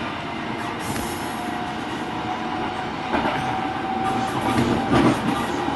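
A train running, heard from on board: a steady rumble with a faint steady whine, then louder knocks and clatter from about three seconds in.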